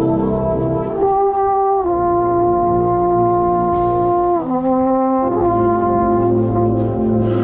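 Drum corps brass line playing held chords, the lead mellophone close by. The chords change about every one to two seconds, with one slide down in pitch a little past halfway.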